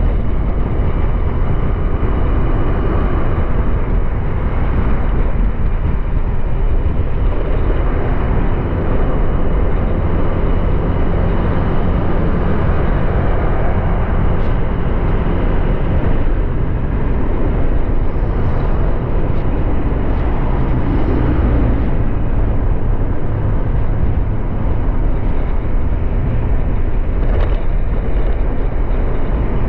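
Honda Click 125i scooter under way: its single-cylinder engine running steadily under heavy, even road and wind noise.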